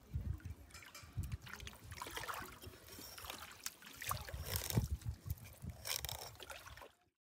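Fillet knife cutting pike fillets away from the backbone and ribs, in irregular scraping strokes, with low rumbling bumps underneath. The sound cuts off abruptly near the end.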